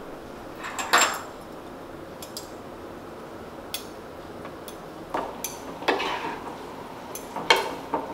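Stainless steel spoons and chopsticks clinking and scraping against wooden bowls as rice bowls are mixed and eaten: scattered light clicks, the loudest about a second in and a busier run of them near the end.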